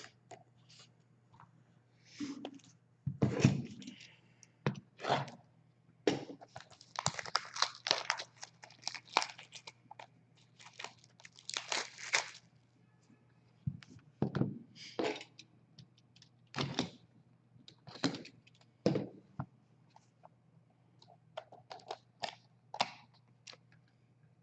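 Trading cards and their plastic packaging being handled and opened by hand: irregular thunks, clicks and crinkles, over a faint steady low hum.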